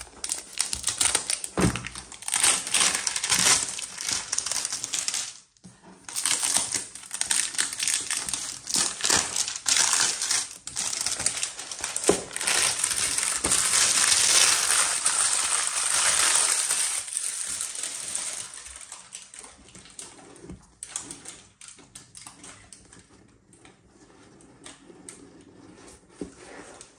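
Clear plastic wrap crinkling and crackling as it is peeled off a gift box and crumpled, with a short break about five seconds in and the loudest stretch a little past the middle. The crackle dies away to faint handling taps over the last several seconds.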